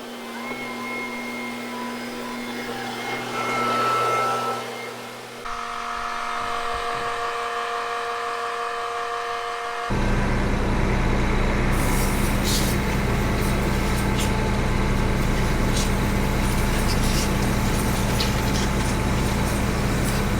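Heavy farm vehicle's diesel engine running steadily, over a few edited clips that each have a different even machine hum. About halfway through the engine becomes much louder and lower, with light ticks and rattles over it.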